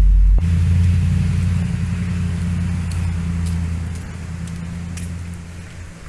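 A motor vehicle's low engine hum, fading steadily over several seconds.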